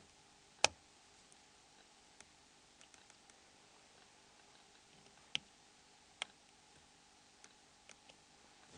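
Sparse small clicks and ticks of a metal dental pick prying the snaps of a mobile phone's metal shield lid. One sharp click comes just after the start, and two more come about five and six seconds in, with lighter ticks between.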